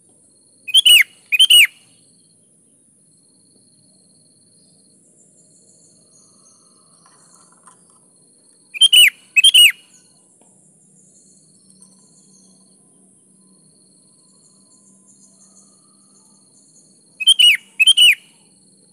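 Sooty-headed bulbul (kutilang) calling: three pairs of short, loud whistled notes, each pair about eight seconds after the last. A faint, steady, high-pitched buzz runs underneath.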